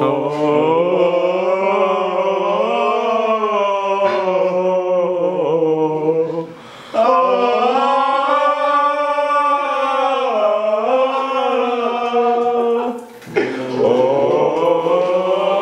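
Voices singing long held notes a cappella in a tiled restroom, in three phrases of about six seconds each with short breaks between.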